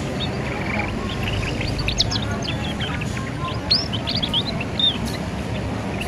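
Young canary twittering as it learns to sing: a jumble of short high chirps and quick sliding notes, busiest in the middle, over a steady low background hum.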